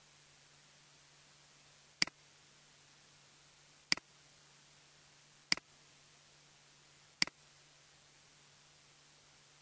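Four computer mouse clicks, about one and a half to two seconds apart, each a sharp click followed at once by a smaller one, over a faint steady hum and hiss.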